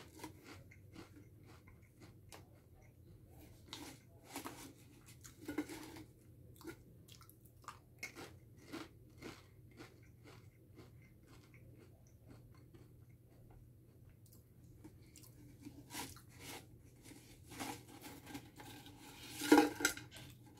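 A person chewing Pringles Scorchin' cheddar potato crisps: irregular crunches, with the loudest cluster near the end. The chips are a little stale.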